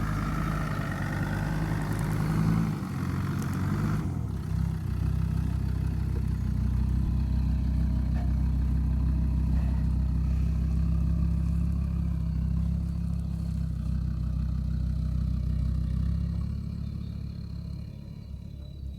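Land Rover Discovery 2 Td5's five-cylinder turbo-diesel engine running off-road with a steady low drone, with added higher rushing noise for the first few seconds. It fades away over the last few seconds.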